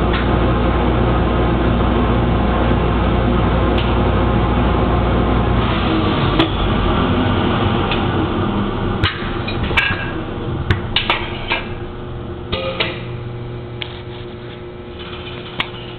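CNC lathe running with a steady mechanical hum and low rumble. About six seconds in the rumble drops away, and sharp clicks and clunks follow while the sound gradually gets quieter.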